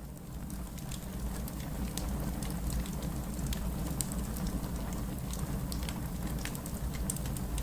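Fire crackling in a fireplace: scattered sharp pops and snaps over a steady low rumble, rising in level over about the first second.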